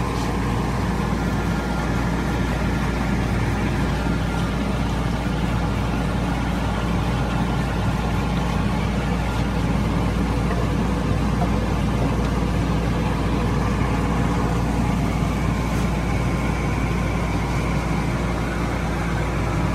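Laser engraver running as it etches a glass beer mug turning in its rotary attachment: a steady machine hum with a deep low drone and a faint steady whine, and a higher whine joining about three-quarters of the way through.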